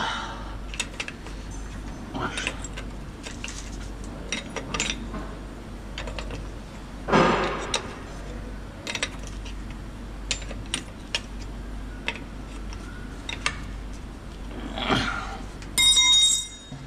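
Metal tools and brake-chamber hardware clinking and tapping irregularly during work on a semi-trailer's brake, with a louder brief rush about seven seconds in and a short high-pitched squeal near the end.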